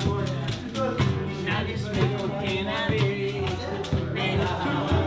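Acoustic guitar strummed with hand drums beating a steady rhythm, and a voice singing along.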